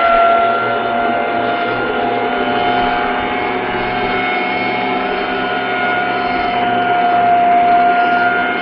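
WEN PL1337 benchtop thickness planer with a spiral cutterhead running on its fast feed rate while it planes a board: a loud, steady motor whine with cutting noise.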